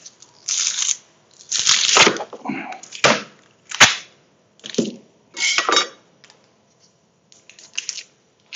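Kitchen knife cutting through a wrapped block of butter on a chopping board: a series of short crackly strokes through the wrapper with sharp knocks of the blade on the board. Near the end, fainter rustling as the wrapped piece is handled.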